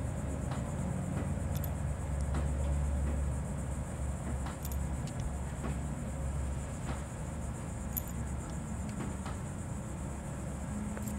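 Steady low machine hum from the hot stamping machine, with light, scattered clicks as small clear needle parts are picked from a metal tray and set into its fixture.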